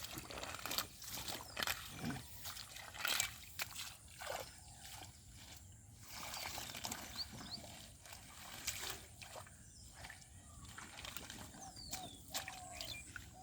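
Shallow river water sloshing and splashing in irregular bursts, as of hands and plants being moved through it, with a few faint bird chirps.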